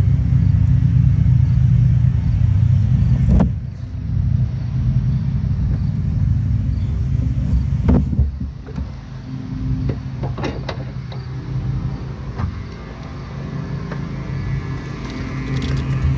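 Steady low motor rumble with a constant low hum in it, like an engine running. Several sharp clicks and knocks sound over it, the kind made by hands working plastic trim and clips.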